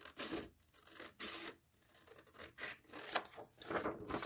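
Scissors cutting through printed color copy paper, a run of short, irregular snips and rustles.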